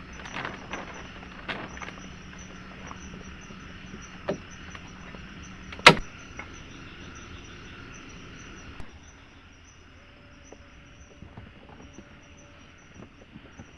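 Scattered knocks and clicks of something being handled, the loudest a single sharp knock about six seconds in, over a steady high pulsing insect trill from the forest.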